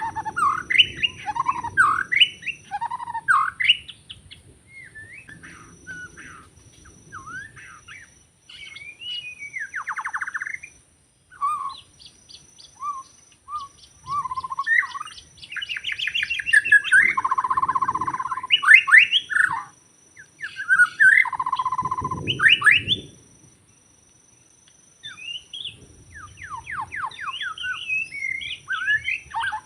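White-rumped shama singing a long, varied song of rising and falling whistles, rapid trills and buzzy notes, broken by short pauses. A faint steady high-pitched buzz runs underneath.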